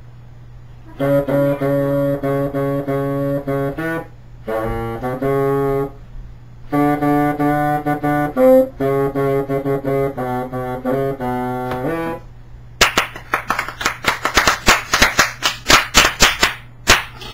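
Bassoon playing a short tune of held notes in three phrases, with brief breaks between them. Near the end the playing stops and hands clap for about four seconds.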